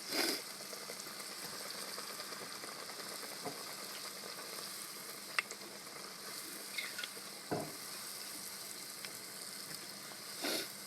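A battered cracker deep-frying in hot oil: a steady sizzle, with a few sharp clicks and pops scattered through it.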